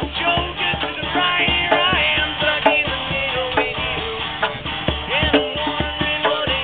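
An acoustic guitar and a hand drum played together in a folk song, the drum keeping a steady beat of about two strokes a second.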